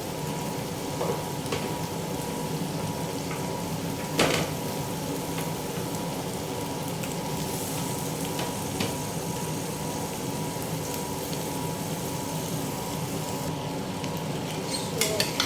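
Chopped vegetables frying in vegetable oil with a steady sizzle, with a single knock about four seconds in and a few more knocks near the end.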